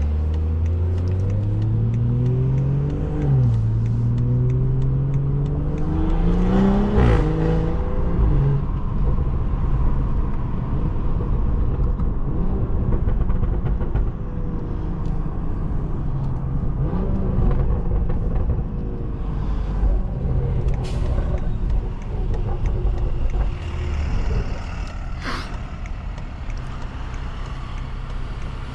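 BMW 540i's turbocharged straight-six, with a stage 2 tune, downpipe and catback exhaust, accelerating through the gears. The pitch climbs, drops at an upshift about three seconds in, and climbs again until about seven seconds in. It then settles into steady cruising, with a brief rise in revs around seventeen seconds.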